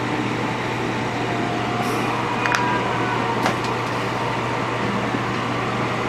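Steady blowing of a hot air rework station's fan, used to desolder a metal shield frame from an iPhone 6 logic board. Two faint clicks sound about halfway through.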